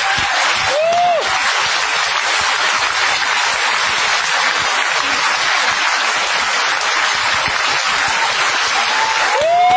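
Audience applauding, a dense steady clatter of many hands clapping. A voice calls out briefly about a second in and again near the end.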